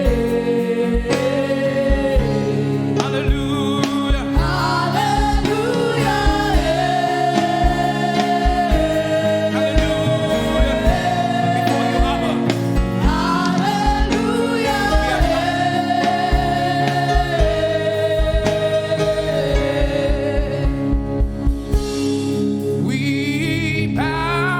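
Live gospel praise and worship music: a voice singing long, held notes that step up and down over steady bass and a regular drum beat. The band thins out near the end.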